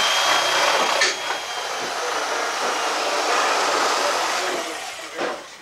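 Corded electric power tool running steadily, with a faint high whine, then dying away near the end; a sharp knock about a second in.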